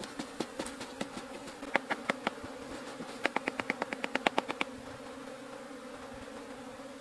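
A honeybee colony buzzing steadily, disturbed while it is being taken from the bait box. Over the hum come light taps, a few spaced out, then a quick run of about a dozen near the middle, as the comb is jarred to shake the bees off it into the catching bag.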